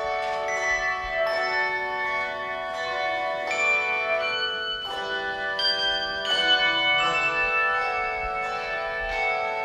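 Tuned bells playing a slow melody, each struck note ringing on and overlapping the next.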